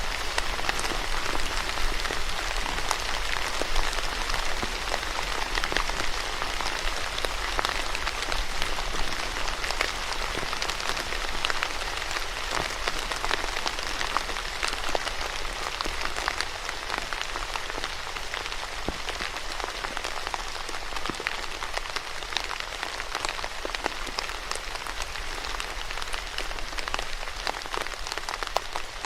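Steady rain falling on a surface, with many distinct drops pattering through it.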